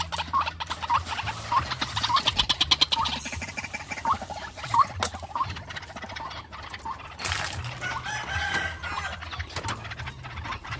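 White-breasted waterhens calling: a run of short clucking notes, about two to three a second, that thins out after about six seconds, over rapid ticking early on and a steady low hum.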